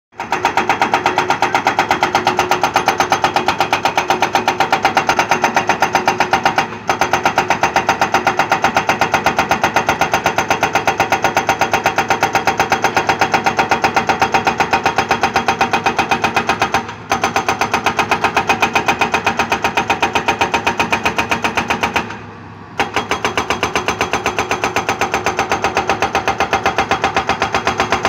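Hydraulic breaker hammer on a Hitachi ZX200 excavator pounding rock in a rapid, even run of blows, stopping briefly three times, the longest pause about three-quarters of the way through.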